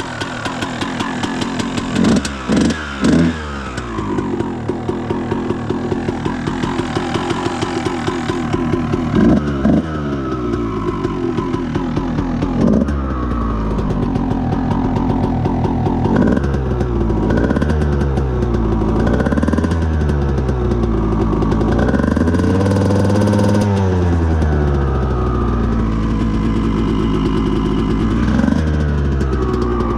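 1997 Honda CR125's single-cylinder two-stroke engine, freshly rebuilt, warming up after a cold start: idling with a few quick throttle blips in the first half, then repeated revs rising and falling, the longest about three quarters of the way through.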